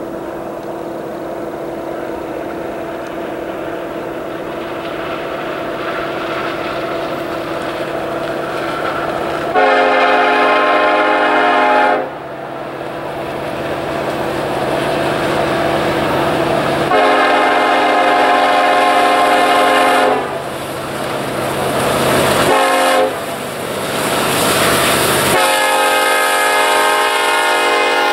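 Union Pacific freight train approaching, its locomotive rumble growing louder, then the lead diesel locomotive's multi-note air horn sounding two long blasts, a short one and a long one held as the locomotives pass close. That long-long-short-long pattern is the standard grade-crossing signal.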